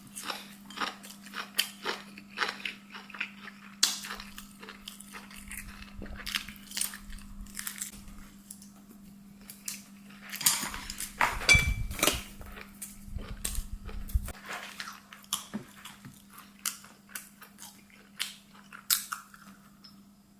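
A person chewing and biting food close to the microphone, with repeated crunches and wet mouth clicks, busiest about halfway through. A steady low hum runs underneath.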